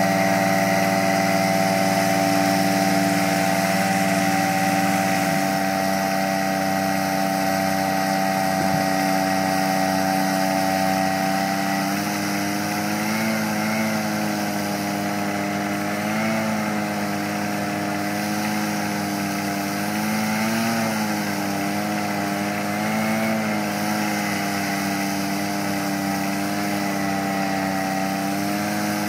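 Engine-driven paddock vacuum and the Walker ride-on mower towing it, running steadily with a constant drone. About twelve seconds in, the drone's pitch starts wavering up and down while the suction hose works over manure on the grass.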